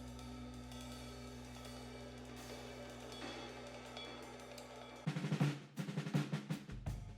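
Background music: steady held tones with light ticking cymbals, then a loud drum beat comes in about five seconds in.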